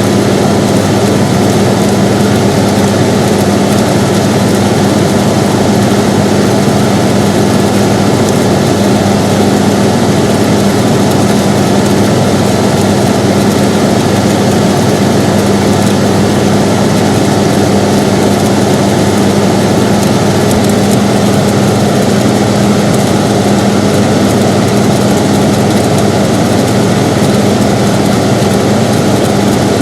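Air conditioner running: a steady, even rush of fan air with a constant low hum, unchanging throughout.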